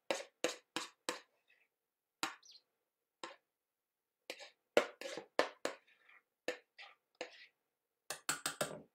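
Plastic mixing bowl and spoon knocking and scraping against a metal saucepan as grated carrot is tipped out: a run of short, sharp taps in clusters, with brief pauses, and a quick flurry of knocks near the end.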